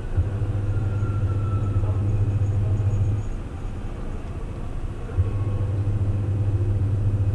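A washing machine's motor humming low and steady in two stretches of about three seconds each, with a pause of about two seconds between.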